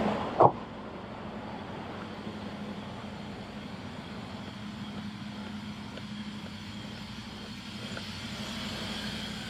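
Semi-truck's diesel engine running steadily at low speed, with one sharp click about half a second in.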